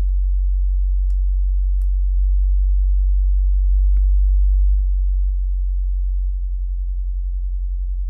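Very low sub-bass sine test tone from a DAW, passed through a granular pitch shifter, sounding steadily. From about six seconds in its level wavers slightly in quick, even pulses. A few faint clicks sound over it.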